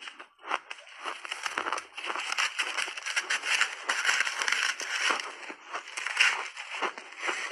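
Shaved ice being chewed in the mouth: a dense, continuous crunching and crackling that thickens about a second in and thins out near the end.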